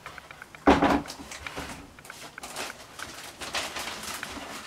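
Unboxing a foam model jet kit: a single thump just under a second in as the fuselage is set down, then irregular rustling of the plastic wrapping and box as the next parts are lifted out.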